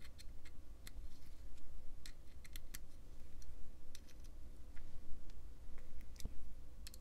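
Light, irregular metallic clicks and ticks from a folding knife with aluminum scales being handled at its pivot as the pivot screw is fitted and started with a small driver.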